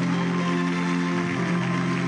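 Closing theme music of a television broadcast: held, sustained chords that shift to a new chord about a second and a half in.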